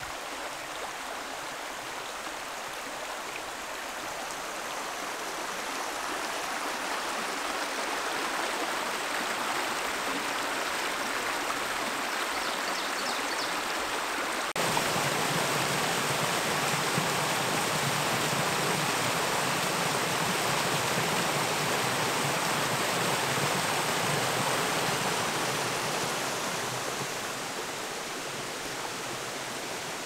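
Mountain creek flowing over rocks, a steady rush of water. About halfway through it switches abruptly to a fuller, deeper rush of water spilling down a small cascade, which eases a little near the end.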